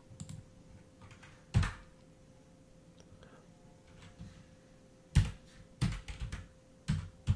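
Keystrokes on a computer keyboard: a couple of separate clicks in the first two seconds, then a quick run of keystrokes from about five seconds in as a name is typed.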